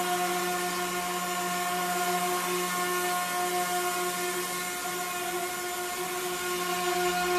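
Electric motor and propeller of the Mirarobot M600 VTOL flying-wing RC plane, hovering nose-up: a steady, even-pitched whine that wavers slightly midway.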